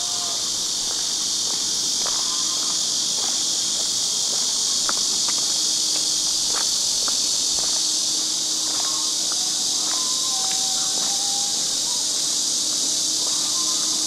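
A dense insect chorus, a steady high-pitched shrill drone that does not let up. Faint short pitched calls and clicks sound now and then beneath it.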